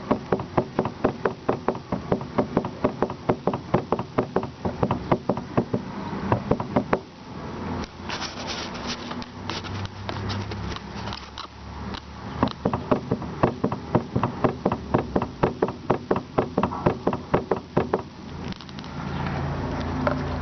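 Lada Kalina steering rack knocking: a rapid, regular series of knocks, several a second, in two long runs with a short break of scattered clicks in between. This is the knock that shows a worn steering rack.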